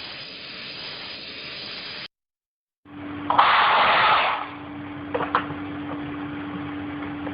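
KKC steam cleaner hissing steadily, then, after a brief cut, letting out a loud jet of steam for about a second. After the jet comes a steady hum from the unit with a couple of light clicks.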